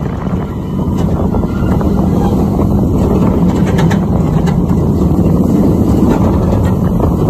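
Kraken, a Bolliger & Mabillard floorless steel roller coaster, its train rumbling along the track at speed through banked turns, with wind buffeting the microphone.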